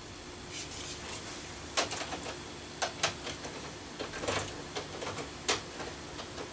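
Light, irregular plastic clicks and taps as a six-wheeled model locomotive is handled and fiddled onto the track, its wheels knocking against the rails while it is being re-railed.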